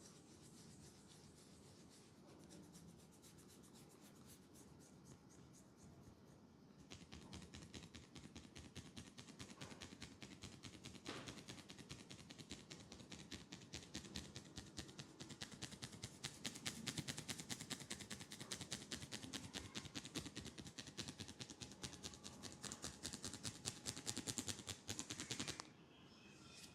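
Quiet at first, then from about seven seconds in a fast, even run of scratching strokes, many a second, that stops suddenly near the end.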